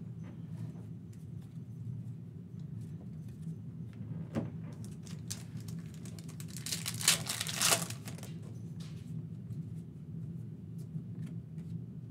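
A foil trading-card pack torn open by hand: a crinkly rip lasting about a second, a little past the middle, with a single click earlier on. A steady low hum runs underneath.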